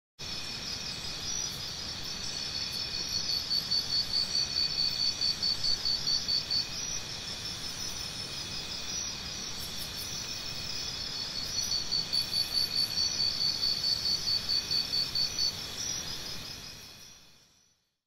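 Crickets chirping in a steady high chorus, with two stretches of louder, rapid pulsed chirping, about five pulses a second. The chorus fades out near the end.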